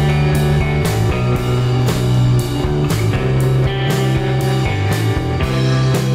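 Rock music with a steady drum beat of about two hits a second.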